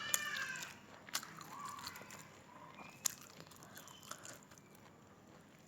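Close chewing and biting sounds of a person eating khichuri with beef curry. Scattered sharp mouth clicks and smacks come a few times, the loudest about three seconds in.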